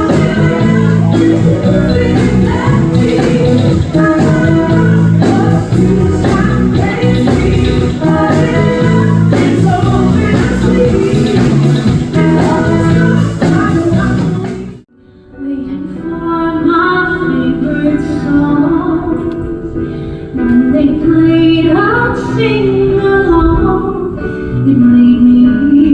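Live music: a full band playing with a steady beat, then about fifteen seconds in it cuts off abruptly and a different, slower song begins, with a woman singing long held notes over the accompaniment.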